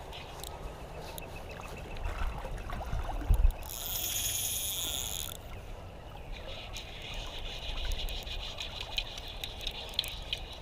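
Steady low rush of creek water, with a short thump about three seconds in and a high buzzing sound lasting about a second and a half soon after.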